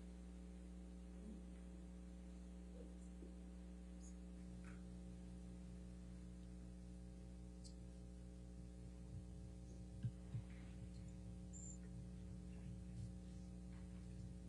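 Faint steady electrical mains hum with room tone, with a couple of soft clicks about ten seconds in.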